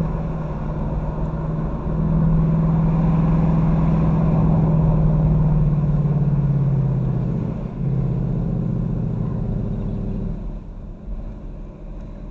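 Ford Mustang GT's V8 engine pulling under load with a steady drone. Its pitch sags and dips briefly about two thirds through, then the engine note falls away and quietens near the end as the throttle eases.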